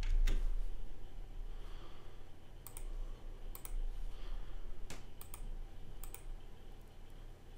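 About ten sharp clicks of a computer mouse, several in quick pairs, over a low steady hum.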